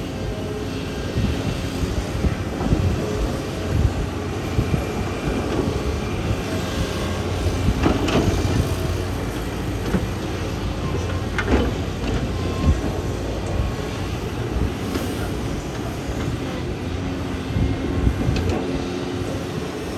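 Kobelco excavator's diesel engine running steadily as it works, with a couple of sharper knocks about eight and eleven seconds in.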